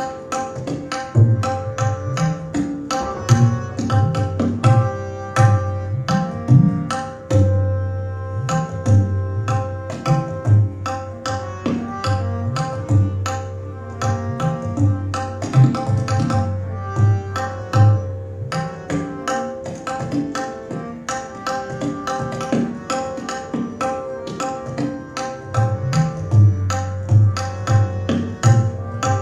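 Tabla solo: dense, rapid strokes on the tabla, with deep bass strokes on the bayan that bend in pitch, over a steady harmonium accompaniment. The drumming thins out briefly about seven seconds in, then picks up again.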